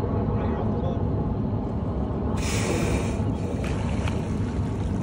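Juvenile grey whale's blow: one short, loud whoosh of exhaled breath about two and a half seconds in as it surfaces, over a steady low rumble.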